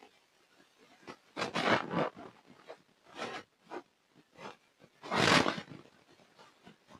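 Hard, gritty dried black mud crunching as it is crumbled apart, in uneven bursts. There is a cluster about one and a half seconds in, smaller crunches after it, and the loudest crunch about five seconds in.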